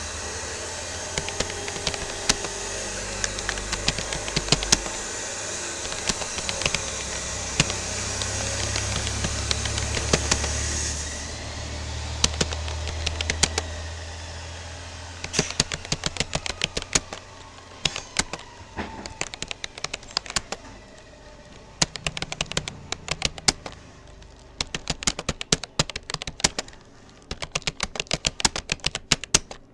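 Typing on a Rapoo computer keyboard: a fast, irregular stream of key clicks. For the first eleven seconds or so a loud steady rumble and hiss runs underneath, then cuts off.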